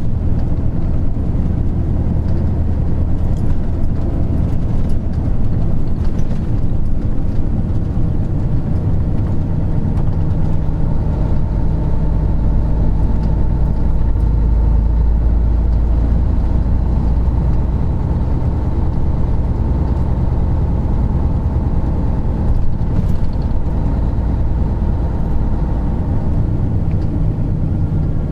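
Isuzu Gala III coach's 12PE1 V12 diesel engine running under way at a steady engine speed, heard from on board with road noise. The low drone grows stronger for a few seconds around the middle.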